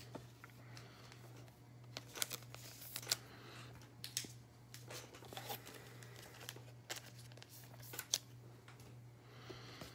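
Faint crinkling and tearing of a Topps Chrome trading-card pack's foil wrapper being opened by hand, in scattered short crackles, over a low steady hum.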